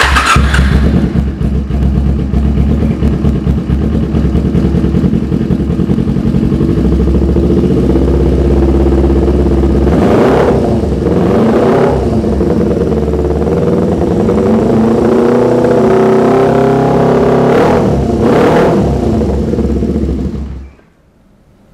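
Custom Kawasaki Ninja 250 cafe racer engine starting up at once and idling, then revved: its pitch climbs, with two sharp throttle blips about halfway and near the end, before it is shut off shortly before the end.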